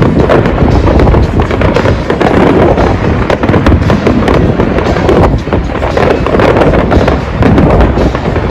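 Dense, continuous fireworks barrage: many overlapping bangs and crackles with no pause between them.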